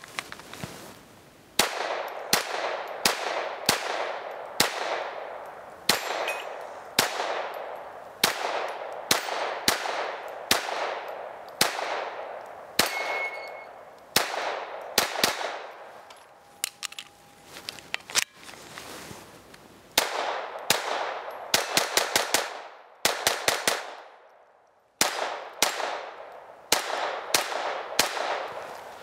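Keltec P17 .22 LR pistol fired unsuppressed in a long string of quick shots, about one to two a second, with a faster cluster about three-quarters through and a brief pause after it. Steel targets give small dings as they are hit.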